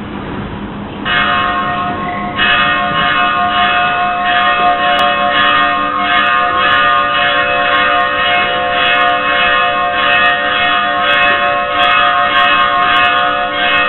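Church bells ringing in a steady rhythm of about two strokes a second, their tones sounding on between strokes. The ringing starts about a second in and grows fuller a little later.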